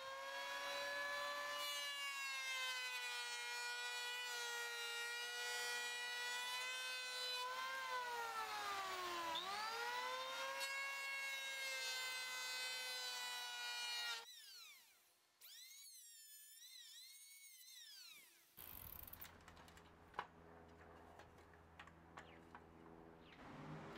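Electric hand planer running with a steady high whine, its pitch dipping briefly about halfway through as the blades bite into the pine board. The whine cuts out about two-thirds of the way in, leaving quieter sounds with one sharp click.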